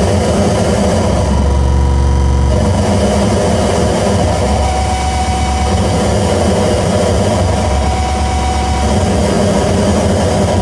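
Loud, steady electronic noise drone from a live experimental set: a dense low hum under a buzzing, hissy haze. The low end changes about two and a half seconds in, and a thin high tone comes in around the middle.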